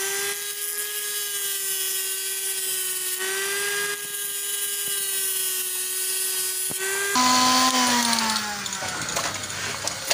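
Electric angle grinder running steadily with its disc grinding a steel drill bit to sharpen it, a steady whine over a grinding hiss. About seven seconds in the sound changes and the pitch falls as the grinder slows.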